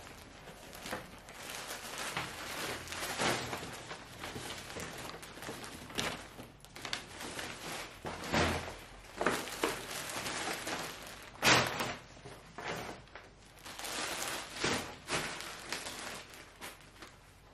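Paper and fabric shopping bags rustling and crinkling as they are carried and set down in a pile, with a few soft thumps. The loudest thump comes about eleven and a half seconds in.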